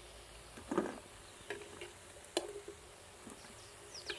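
Perforated steel skimmer clinking and scraping against a metal kadhai while fried pakoras are lifted out, a few sharp clinks roughly a second apart over the faint sizzle of hot frying oil.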